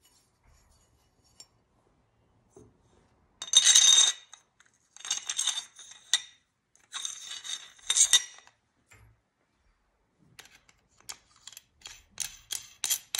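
Metal outer tube of a solvent trap kit sliding over its stacked metal cups: three scraping runs of metal on metal with a ringing edge, followed in the last few seconds by a quick series of light metal clinks and taps.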